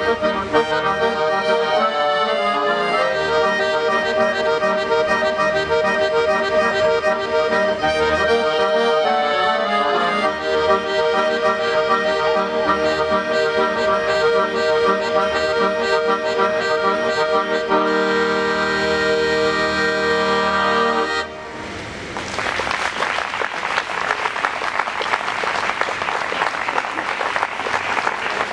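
Three accordions playing a piece together, closing on a long held chord that stops abruptly about three quarters of the way through. The audience then applauds.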